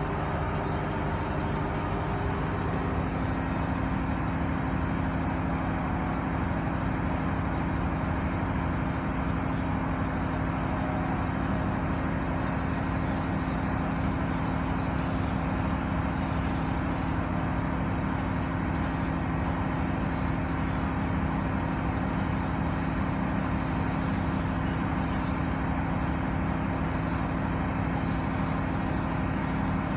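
A steady low mechanical drone that holds one pitch, with a few fixed low tones over a constant rumble.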